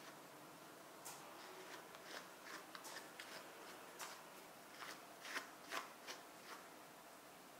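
Faint, irregular rustling strokes of a wooden-handled pin brush drawn through a toy poodle's curly coat, working out tangles, with a couple of louder strokes a little past the middle.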